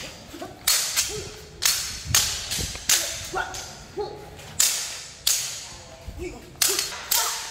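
Sword blades clashing again and again in a sparring exchange: about a dozen sharp clangs, each with a short ringing tail, coming in an irregular rhythm of one or two a second.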